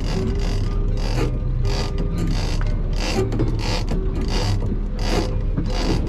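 Fishing reel being cranked, its ratchet rasping in an even rhythm of about two strokes a second, over the steady low hum of the boat's engine.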